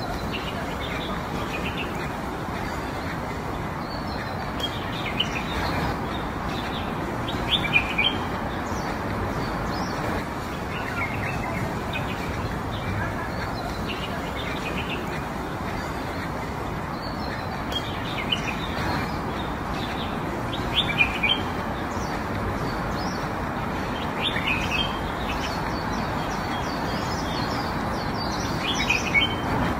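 Birds chirping in short calls every few seconds over a steady background hiss of outdoor ambience.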